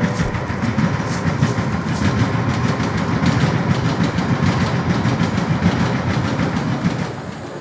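Dry fallen leaves crunching and rustling under rubber wellington boots as feet shuffle and stamp through them: a dense, continuous run of crackles that stops suddenly near the end.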